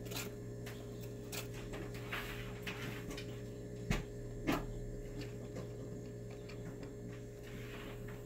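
Steady low hum with scattered faint clicks and rustles, and two sharper clicks about four and four and a half seconds in.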